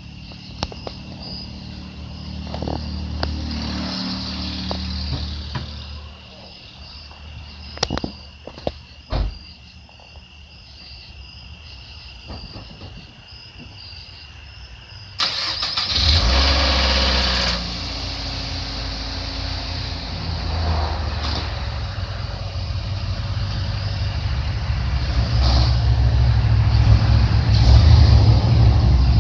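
Crickets chirping and a few sharp clicks, then about halfway through a car engine is started: a sudden loud burst for about two seconds, settling into a steady running that grows louder toward the end as the car is pulled out. The engine is fitted with aftermarket headers.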